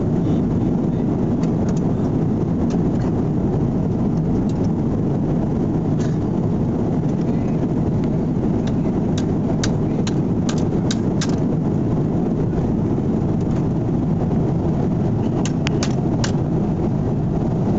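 Airliner cabin noise: a steady low rumble and rush from the aircraft. A few faint clicks come in the middle and again near the end.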